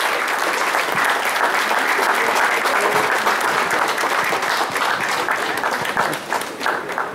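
Audience applauding: dense clapping that thins out and dies down near the end.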